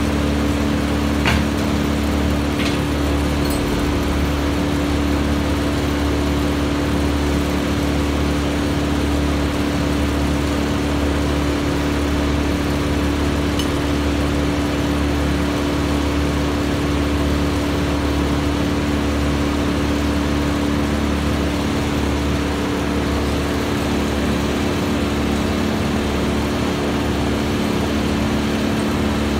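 Wood chipper's engine running at a constant speed, a steady drone with no wood being fed through it. A couple of faint clicks sound about a second in.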